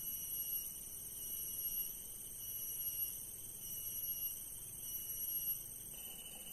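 A steady, high-pitched insect chorus of buzzing and trilling, swelling and easing about once a second.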